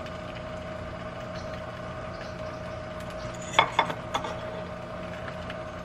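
Egg frying gently under a lid in a pan, a faint steady sizzle with a constant hum underneath. Two light knocks of a spoon against a pot come about three and a half and four seconds in, as beans are scooped out.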